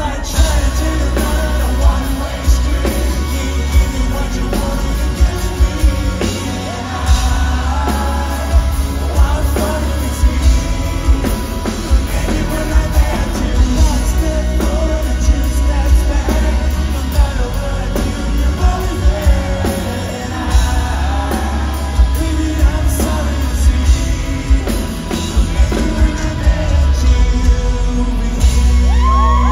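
Rock band playing live in an arena: a male lead voice sings over electric guitar, bass and drums, with regular sharp drum hits and a heavy, boomy low end.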